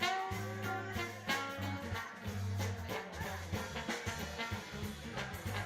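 Live band playing during a sound check: held bass notes under drum hits and other instruments.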